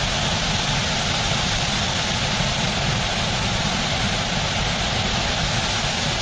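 Steady rush of white water pouring down a small rocky waterfall, an even, unbroken noise.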